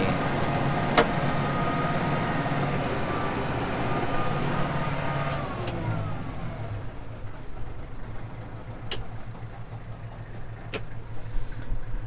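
Tractor engine running with a PTO-driven International 1490 haybine mower-conditioner, heard from inside the cab. About halfway through, the pitch falls and the sound drops as the engine is throttled back and the haybine winds down, leaving a lower, quieter running sound with a few light clicks.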